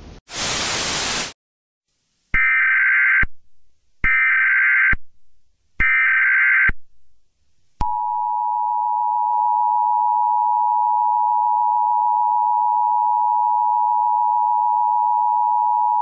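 Emergency Alert System tones: a short burst of static hiss, then three identical screeching data bursts of an EAS header. From about eight seconds in comes the steady two-note EAS attention signal, which announces that an alert message follows.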